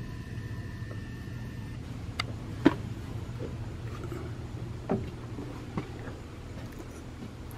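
Steady low hum of an indoor room with a few light knocks and clicks, the loudest about two and a half seconds in.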